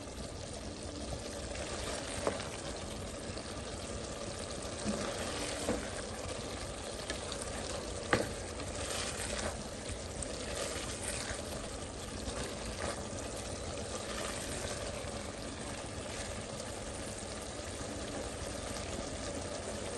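Keema masala with potatoes and peas sizzling in a kadhai as it is stir-fried, with a few sharp knocks of the stirring spoon against the pan.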